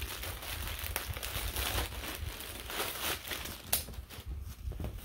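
Crinkling of plastic packaging and rustling cloth as a folded shirt is unwrapped and shaken out, with one sharp tick about three-quarters of the way in.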